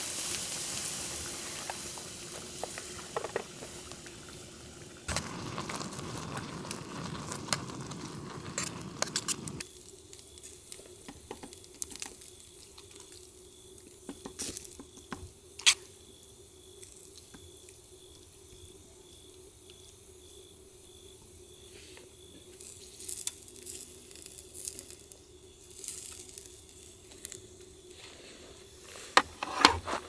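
Outdoor cooking: food sizzling in a pan, loudest at the start and fading, then cutting off; after that, scattered light clicks and scrapes of utensils against cookware.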